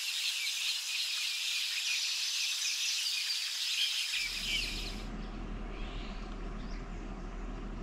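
Birds chirping densely over a steady hiss. About four seconds in, a low steady hum and rumble of outdoor ambience comes in, and the chirping fades to a few faint calls.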